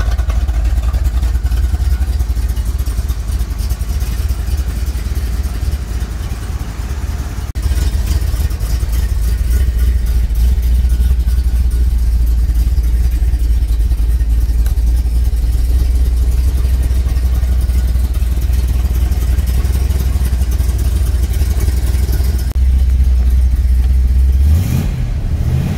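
1970 Plymouth Barracuda's 440 cubic-inch Six Barrel V8, with three two-barrel carburetors, running at idle: a steady deep rumble.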